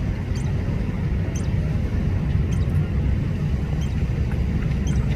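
Small songbirds chirping: short, high chirps roughly once a second, over a steady low rumble.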